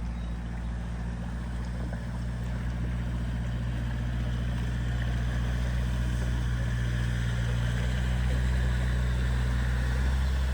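A motor vehicle engine running steadily with a low hum that slowly grows louder, under a faint wash of noise.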